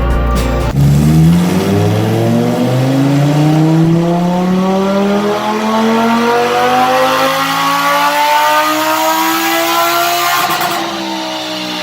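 Sports car engine accelerating hard, its pitch climbing steadily for about ten seconds with a couple of quick steps early on, then dropping away near the end as it comes off the throttle.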